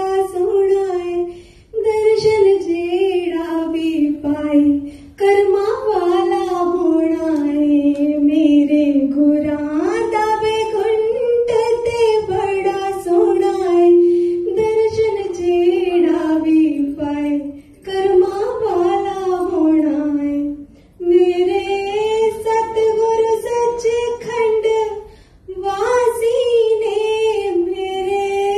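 A woman singing a devotional bhajan solo into a microphone with no instruments, in long phrases broken by brief pauses.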